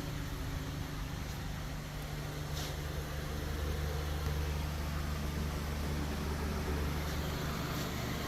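Steady low machine hum, like a shop fan running, with a short hiss of air about two and a half seconds in.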